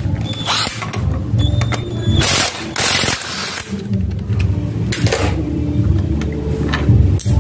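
Small mechanical clicks and rattles of hands and a spray can working at a scooter's rear wheel hub, with a short aerosol spray hiss about two seconds in.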